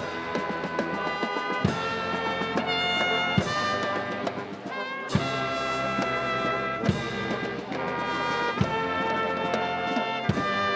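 Marching wind band playing long, held brass chords on trumpets and trombones, with a heavy bass drum stroke about every second and a half.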